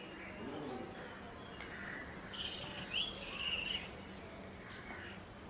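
Birds chirping in short high notes, a few at a time, busiest about two and a half to four seconds in, over faint outdoor background noise.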